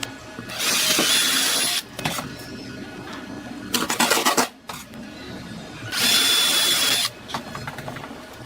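Electric drill run in short bursts: two trigger pulls of about a second each with a steady high whine, and a shorter, choppy burst between them.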